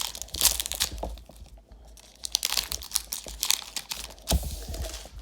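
Foil wrapper of a trading card pack crinkling and being torn open, in several crackly bursts.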